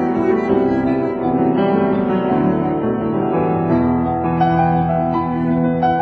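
Instrumental piano music: slow, with long held chords and a few new notes struck over them.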